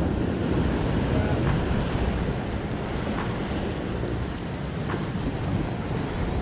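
Ocean surf breaking and washing over jetty rocks, a steady rushing of waves.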